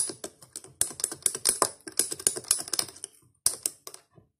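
A long spoon stirring a frappé in a tall glass, clinking quickly and repeatedly against the glass, stopping near the end.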